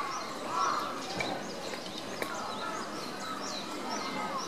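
Many birds chirping and calling at once: a dense chatter of short high chirps with repeated short arched calls lower in pitch among them.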